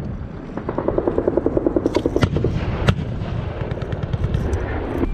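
Heavy machine-gun fire: a rapid, rhythmic burst from about a second in, with sharp separate shots about two and three seconds in and smaller cracks after.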